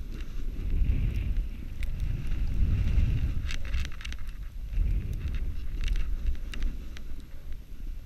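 Wind rumbling on the microphone as a snowboard slides over snow, the board scraping and hissing on the surface with scattered sharp ticks.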